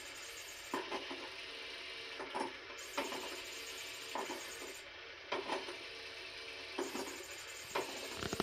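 JML Pop n Play motorised peekaboo cat toy running: a steady motor whir inside its plastic dome, with sharp ratcheting clicks from its gear mechanism about once a second.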